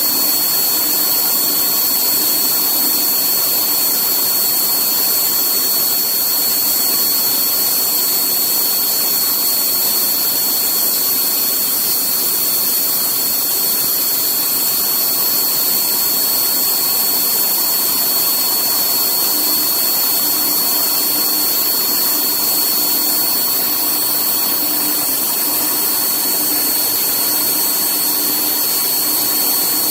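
Haas TM-2P CNC vertical mill running a cutting cycle on a rifle receiver, a steady high whine over a constant rushing noise.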